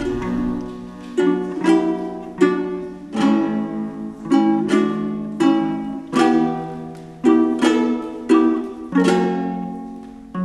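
Two panduri, Georgian plucked lutes, strumming chords in a lilting rhythm, each chord struck sharply and left to ring: the instrumental opening of a folk song, before any singing.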